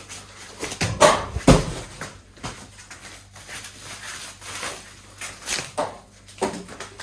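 Packaging being handled and pulled off a part: irregular rustling and scraping with two sharp knocks about a second in, over a faint steady hum.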